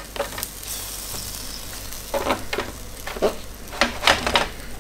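Chicken wings and their juices sizzling in a hot roasting tray while they are turned over with tongs, with several short clicks and scrapes of the tongs against the wings and tray in the second half.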